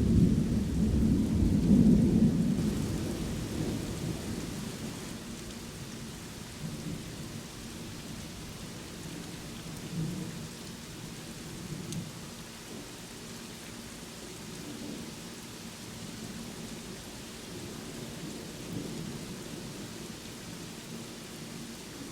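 Rain falling steadily under a roll of thunder. The rumble is loudest about two seconds in and dies away over the next few seconds. Fainter low rumbles swell briefly near the middle.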